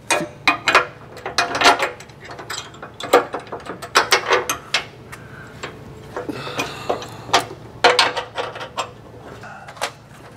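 Steel slider frame-mount bracket knocking and scraping against the Ford Bronco's frame as it is worked into place: a run of irregular metallic clicks and clanks.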